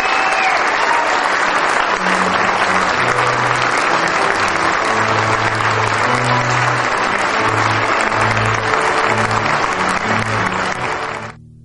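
Wedding congregation applauding steadily over recessional music with a low bass line. The applause cuts off suddenly near the end, leaving only the music.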